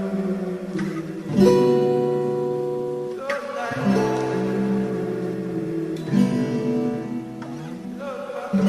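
Music: plucked guitar chords ringing out, with a new chord struck about every two to three seconds.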